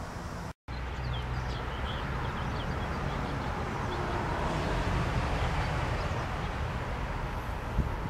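Faint, short, high chirps and twitters of small finches feeding at a feeder, scattered throughout over a steady low rushing background noise. The sound drops out completely for a moment about half a second in.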